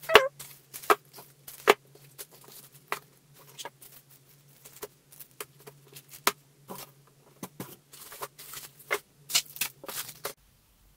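Plastic-wrapped bundles of washi tape rolls being handled and set down on a wooden table: irregular crinkles of plastic wrap and light knocks. A faint low hum runs underneath and cuts off near the end.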